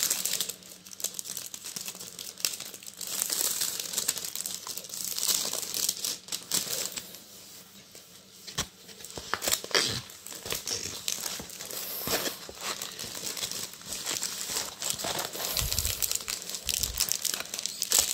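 Thin clear plastic packaging crinkling and rustling as a rolled diamond-painting canvas is handled, slid out of its sleeve and unrolled, with a quieter lull about halfway through. A few dull low thumps come near the end.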